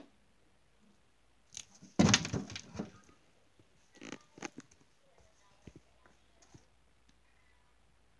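Handling and movement noise: a click, then a burst of rustling and knocking about two seconds in, followed by a few softer rustles and scattered clicks.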